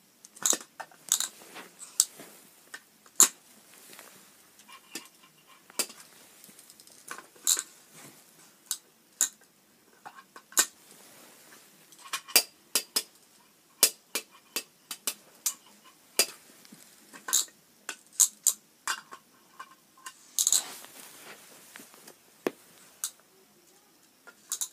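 Irregular sharp plastic clicks and clacks, about one or two a second, as a toy grabber claw grips, lifts and sets down miniature plastic trash bins. There is one longer rattle near the end.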